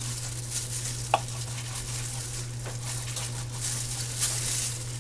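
Knife slicing raw chicken breast into chunks on a plastic cutting board, with the crinkle of disposable plastic gloves and one sharp click about a second in. A steady low hum runs underneath.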